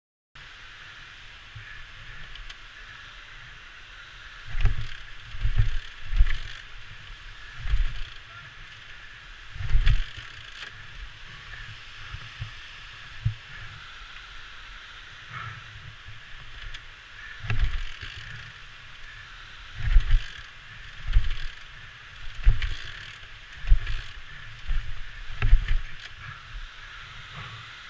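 Honda XL500S single-cylinder four-stroke dual-sport bike climbing a rough, muddy trail, heard through a handlebar-mounted action-camera case: a steady muffled drone with about a dozen heavy low thumps at irregular intervals as the bike jolts over rocks and ruts.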